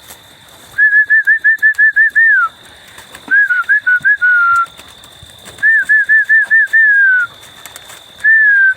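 A person whistling a pigeon call-in: four runs of rapid, high chirping notes, each ending in a falling slide, the way a fancier whistles his Birmingham Roller kit down to land at the loft. A faint steady high tone runs underneath.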